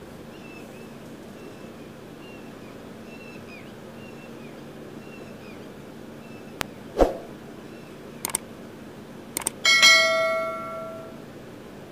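A few sharp clicks and a knock, then a metallic bell-like ring near the end that fades over about a second and a half, over a faint steady hum.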